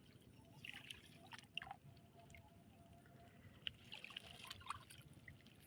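Near silence with faint small splashes and trickles of water and a few light clicks.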